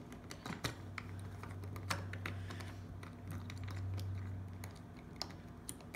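Phillips screwdriver turning a small screw into the plastic cap of a pencil sharpener's cutter head: scattered light clicks and taps of the driver and plastic parts. A low steady hum runs underneath from just under a second in until nearly five seconds.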